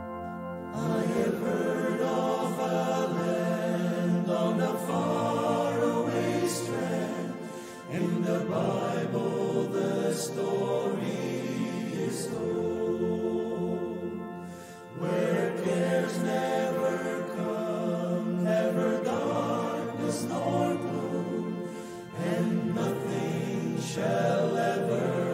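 Male vocal ensemble singing together in harmony, in phrases of about seven seconds with short breaks between them.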